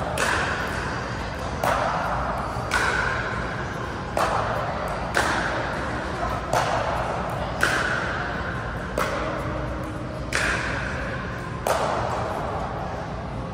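Pickleball rally: paddles strike a plastic pickleball about ten times, roughly once every second or so. Each sharp pock rings on in the echo of a large indoor hall.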